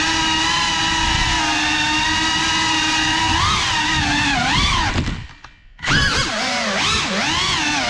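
Cinelog 35 cinewhoop drone on a 6S battery: the motors and propellers whine, the pitch rising and falling as the throttle changes. About five seconds in the whine cuts out almost completely for under a second, then spools straight back up.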